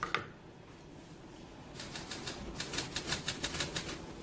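Press photographers' camera shutters clicking in rapid bursts, several shots a second, starting about two seconds in.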